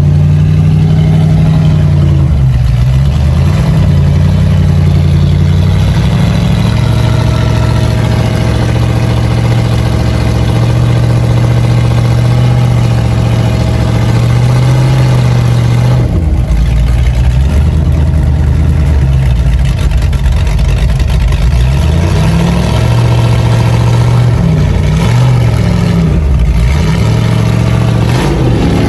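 Off-road rock crawler's engine running at low revs, its pitch rising and falling with throttle changes as it works over the trail, easing off briefly twice.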